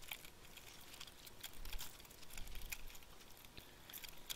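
Faint, scattered light clicks and taps of small metal hardware and wire being handled against a light fixture's metal base plate.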